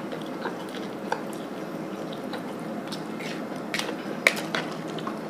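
Mouth noises of a person chewing spicy noodles, with a few sharp clicks of a metal spoon against a plastic bowl, the loudest a little past four seconds in, over steady background noise.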